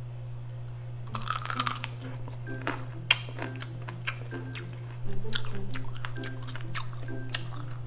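Close-up chewing and crunching on a mouthful of food, a rapid run of small crunches and clicks that grows louder for about a second near the middle, over soft background music.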